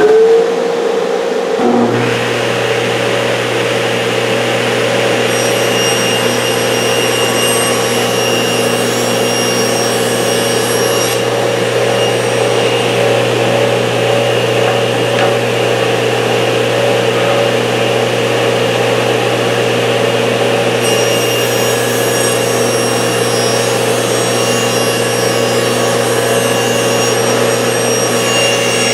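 Shop dust collector running steadily, its motor just at full speed. About two seconds in, an old Jet table saw starts and adds a deep hum. Pine boards are then ripped through the saw blade, with the cutting noise rising over the machines twice, for several seconds each time.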